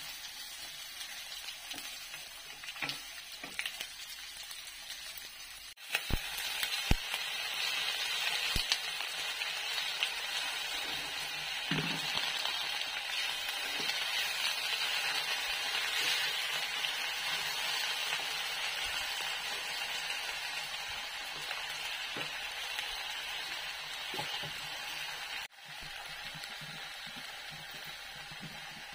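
Vegetables stir-frying in hot oil in a wok: a steady sizzle, with a few taps and scrapes of a wooden spatula against the pan in the first seconds. The sizzle gets much louder about six seconds in, when the wok is heaped with sweet leaf (cangkuk manis), and drops suddenly a few seconds before the end.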